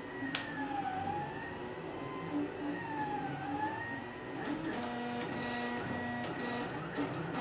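3D printer's stepper motors whining as the print head moves, the pitch gliding up and down and jumping between steady tones. A few keyboard key clicks come in the second half.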